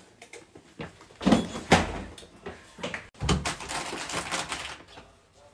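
A quick run of knocks and thuds from hurried handling of things, then a couple of seconds of rustling and clatter, some of it at a bathroom counter.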